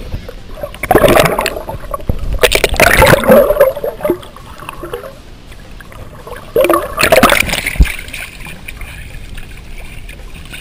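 Water gurgling and sloshing around a submerged action camera, in three loud bursts. A single sharp knock follows the last burst.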